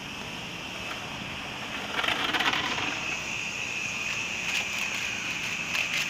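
Toy Henry vacuum cleaner's small battery motor running with a steady high whine, louder from about two seconds in. A short rush of noise comes about two seconds in, and a few clicks or knocks come near the end.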